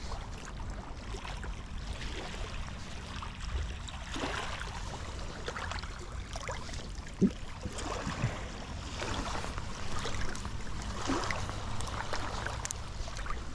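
Shallow seawater lapping and trickling at the shoreline, with faint rustling as bait is wrapped onto a hook with bait elastic and a single short tick about seven seconds in.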